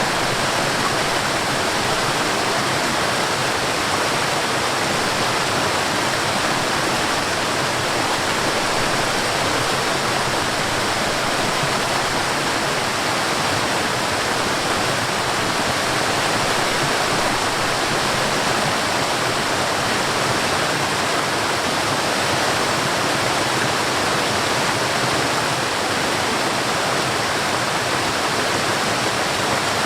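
Mountain stream and waterfall: water rushing and splashing over rocks, a steady full hiss with no change.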